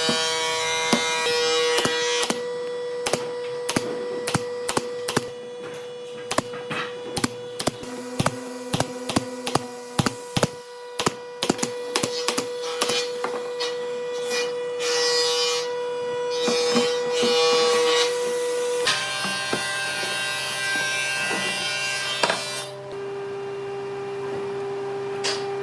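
Woodworking tool sounds: a run of sharp knocks on wood, several a second, over a steady hum, then a steady machine hum that shifts in pitch twice near the end.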